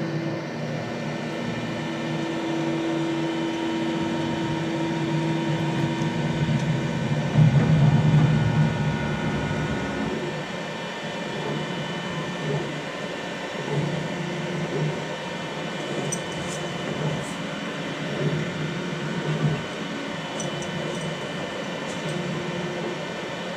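Qidi X-Max 3D printer running at the start of a print: fans humming steadily while the stepper motors whine in short moves that change pitch. The moves are loudest about eight seconds in.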